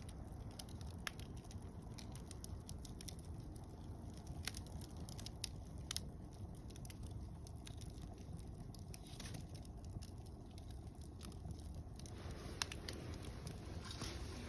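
Wood fire of mixed softwood and hardwood logs burning, with scattered sharp pops and crackles over a low steady rumble. The crackling thickens near the end.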